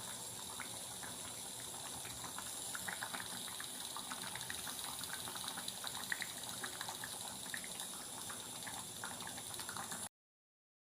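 Food cooking in a pan: a steady hiss with many small irregular pops and bubbling crackles. It cuts off suddenly near the end.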